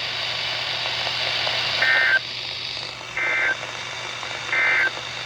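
Three short digital data bursts from a NOAA Weather Radio broadcast, about a second apart, each a warbling pair of tones, heard over steady radio hiss. This is the Emergency Alert System's end-of-message signal that closes the alert.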